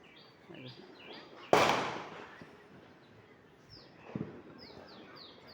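A single sharp firecracker bang about a second and a half in, with a trailing echo, and a fainter thud later on. A bird calls repeatedly with short falling chirps throughout.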